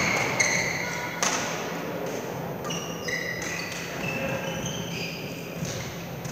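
Badminton rally: sharp racket-on-shuttlecock hits, clearest twice in the first second and a half, among short high squeaks of shoes on the court floor.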